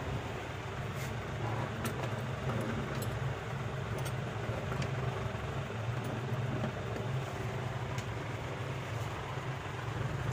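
Steady low mechanical hum, with a few faint light clicks scattered through it.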